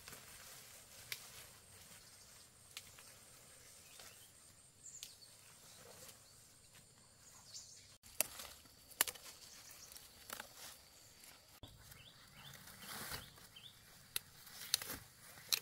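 Rustling through dense ferns, then sharp snaps and crackles as young fern shoots are picked by hand, the snaps coming more often in the second half. Faint bird chirps in the background.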